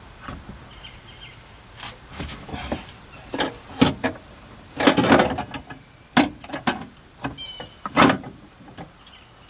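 Irregular knocks, clunks and scrapes as a Bose amplifier and its mounting cradle are worked into place behind a car's glove box. The loudest clunks come about halfway through and again near the end.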